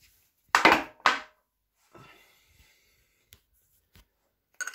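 Hand tools knocking against a milling machine: two loud hard knocks about half a second in, then a few faint ticks and knocks as a spanner is brought to the spindle.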